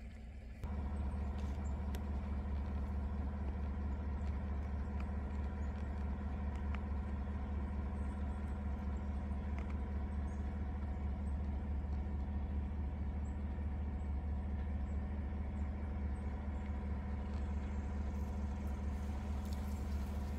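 A vehicle running steadily, a constant low drone with a few steady hum tones above it. It starts abruptly about half a second in.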